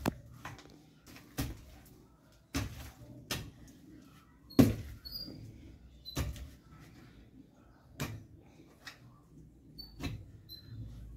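Hoe blade striking and chopping into dry red soil while a planting hole is dug: a series of dull, irregular thuds about one a second, the loudest near the middle.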